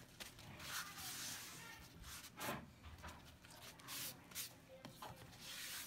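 Paper towel rubbing and dabbing a wet geoduck siphon dry on a wooden cutting board: faint, irregular rustles and soft wet squishes.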